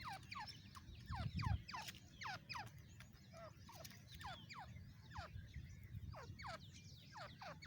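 Female grey francolin calling: a run of short, sharp notes, each sweeping steeply down in pitch, about three or four a second and coming in loose bursts. A brief low rumble comes about a second and a half in.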